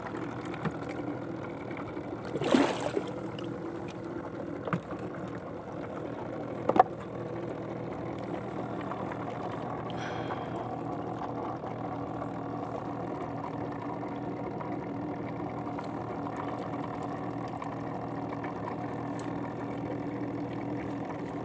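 A small boat engine running steadily, with a few sharp knocks and clicks, the loudest about two and a half seconds in and another near seven seconds, as fishing line and hooks are handled in a wooden boat.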